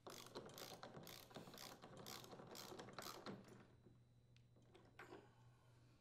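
Faint, quick clicking of a socket ratchet, about four clicks a second, as it tightens the nut holding the auger pulley on a snowblower; the clicking stops after about three and a half seconds.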